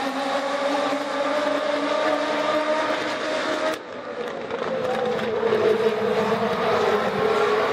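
A pack of Legends race cars, with Yamaha motorcycle engines, running flat out around an oval with several engine notes overlapping. The sound goes briefly muffled about four seconds in, then one engine's note sags and climbs back up.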